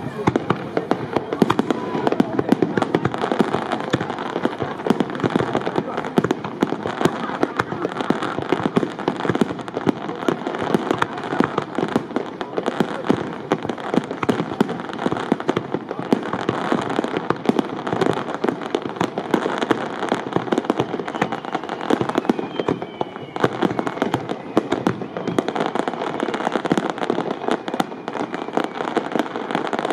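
Aerial fireworks display: shells bursting in rapid, continuous succession, a dense barrage of bangs with no let-up.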